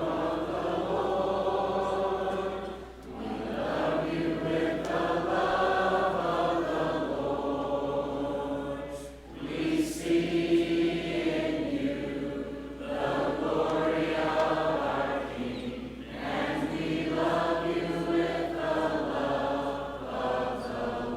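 A church congregation singing a hymn together without instruments, in long held phrases with brief pauses between them.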